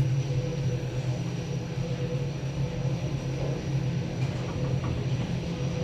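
KONE EcoDisc passenger lift travelling between floors: a steady low hum inside the car with a faint steady whine above it.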